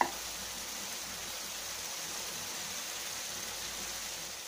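Tomato and garlic pickle sizzling steadily in sesame oil in a frying pan over low heat, an even hiss, with a brief tap at the very start.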